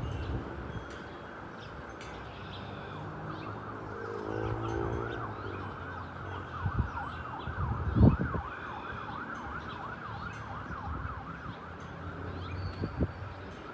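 Rolls-Royce Trent 700 jet engines of an Airbus A330 airliner passing overhead, a steady low rumble with a rising hum about four seconds in. Through the middle runs a quick, repeated rise-and-fall wail like a distant siren's yelp, and a few sharp thumps of wind on the microphone come near eight seconds in and near the end.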